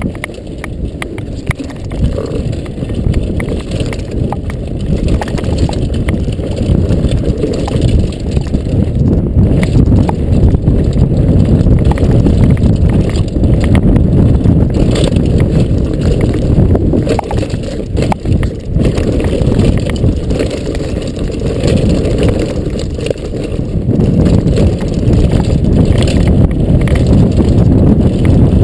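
A downhill mountain bike rattling over a rough dirt trail at speed, with steady wind rumble on the microphone and many sharp knocks and clatters from the bike. It grows louder about ten seconds in.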